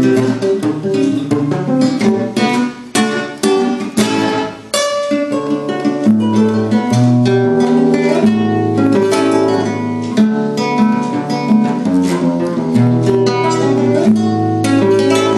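Acoustic guitar played solo as an improvisation: a run of sharply struck, separated chords in the first few seconds, then fuller ringing notes over a steady bass line.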